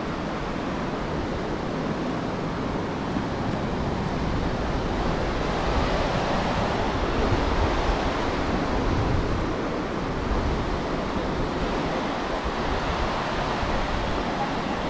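Surf washing in steadily, swelling to a peak about halfway through and then easing off.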